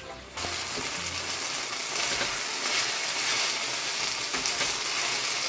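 Lamb and rice sizzling as they fry in a pan, with a wooden spoon scraping and stirring through them; the water is mostly cooked off and the rice is starting to fry. The crackle starts suddenly about half a second in.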